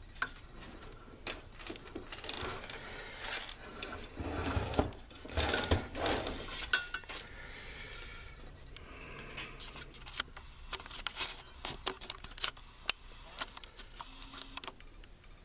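Light metallic clinks, clicks and rustling from hands working wires and tools against a metal power-supply chassis. The sounds are busiest about a third of the way in and thin out to scattered clicks.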